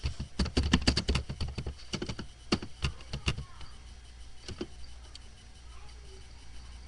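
Computer keyboard typing: a quick run of key clicks over the first three seconds, then a few scattered clicks.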